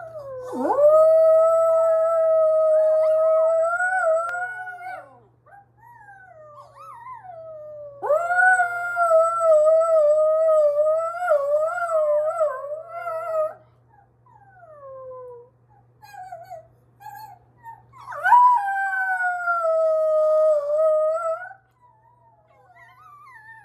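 Small poodle-type dog howling along with a recording of its own howling played from a tablet. There are three long, steady howls of several seconds each, with fainter, wavering howls between them.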